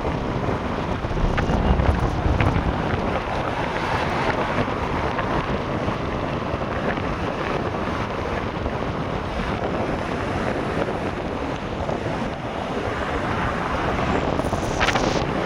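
Wind buffeting the microphone: a steady rushing noise with low rumble and a few faint clicks.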